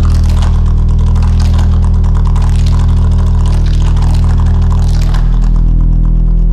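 Soundtrack music: a loud, sustained deep bass drone under a dense crackling, rustling texture, the bass changing note about five seconds in.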